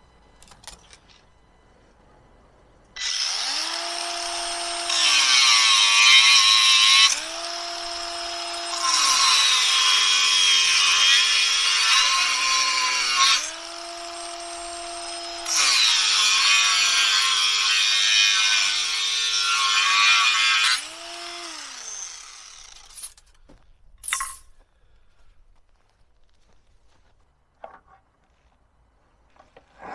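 Handheld power tool working metal: its motor spins up and down several times and runs under load in three long stretches with a harsh, high-pitched noise, then stops about twenty seconds in. A few short knocks follow.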